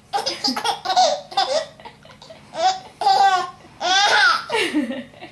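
A 4-month-old baby giggling in a string of short, high-pitched bursts of laughter, the longest near the end of the run, a few seconds in.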